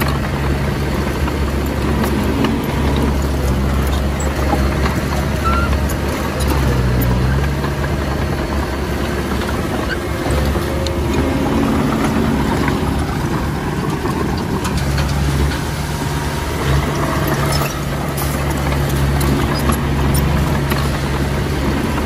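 Heavy diesel earthmoving equipment running steadily, its engine note shifting slightly with load, with faint scattered clanks.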